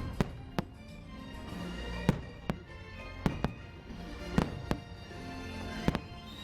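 Fireworks bursting overhead with sharp bangs at irregular intervals, about ten of them, over the fireworks show's soundtrack music.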